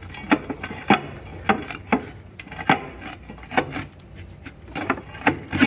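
Water meter box lid being shut and latched: a string of sharp, irregularly spaced clanks and knocks.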